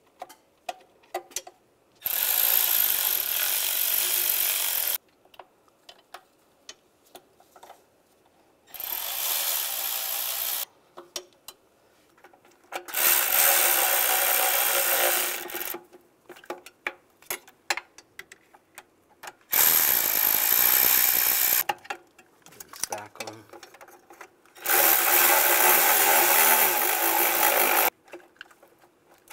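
Cordless ratchet running bolts down in five bursts of two to three seconds each, with sharp clicks of the tool and sockets being handled in the gaps between.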